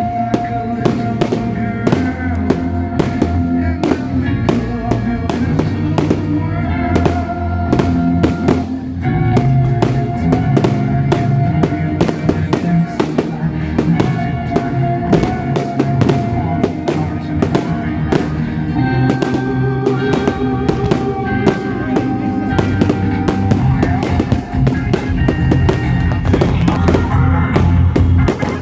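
Fireworks display: rapid, near-continuous firework bangs and crackles over loud music with held notes and a steady low beat.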